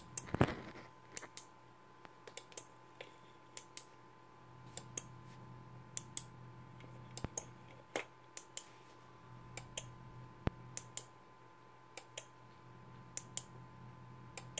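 Two small relay modules driven by an ESP-01 on a double-blink sketch, clicking in quick pairs about a fifth of a second apart, one pair roughly every 1.2 seconds. A louder, noisy knock comes about half a second in.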